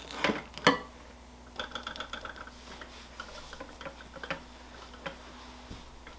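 Metal spoon clinking and scraping against a ceramic bowl as frosting is scooped, two sharp clicks in the first second, followed by faint irregular ticks and scrapes of frosting being spread on a cake.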